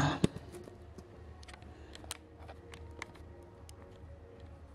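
Handling noise of the camera being gripped and covered by a hand: scattered small clicks and rubs of fingers on it, over a faint steady hum.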